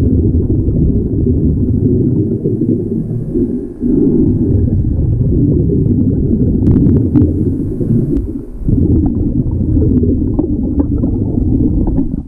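Muffled underwater rumble and bubbling of a diver breathing through an Air Buddy hose regulator, with brief lulls about four and nine seconds in and a few faint clicks near the middle.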